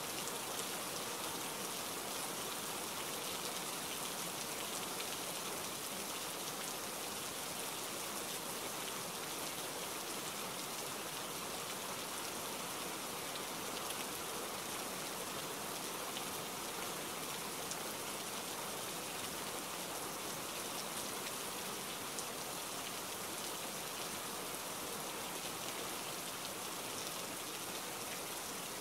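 Steady rain, an even hiss that keeps the same strength throughout.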